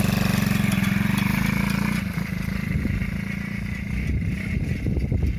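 50cc children's quad bike engine running under throttle: a steady buzz for about two seconds that then turns rougher and a little quieter as the quad drives off.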